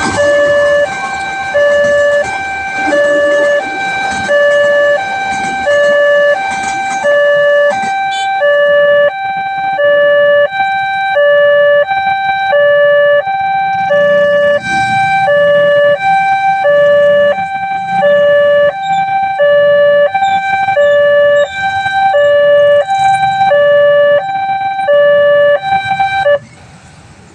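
Railway level-crossing warning siren sounding a two-tone hi-lo alarm, alternating between a higher and a lower tone about every 0.7 s, the warning that a train is approaching. It cuts off abruptly near the end.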